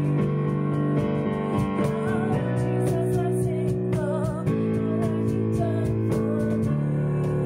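A worship song: a woman singing with vibrato over a strummed acoustic guitar accompaniment.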